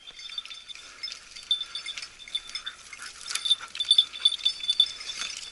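A small metal bell on a hunting dog's collar, tinkling in short irregular jingles as the dog works through the scrub.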